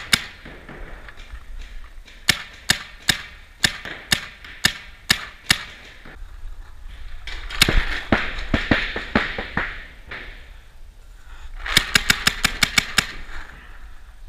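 Paintball markers firing in strings of shots: about nine spaced shots a couple of seconds in, a dense flurry in the middle, and a fast burst of rapid fire near the end, each shot ringing on in the indoor hall.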